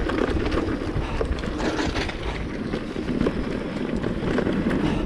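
Mountain bike rolling fast down a dirt and stone trail: tyres rumbling over the ground with frequent rattles and knocks from the bike, and wind rushing over the camera microphone.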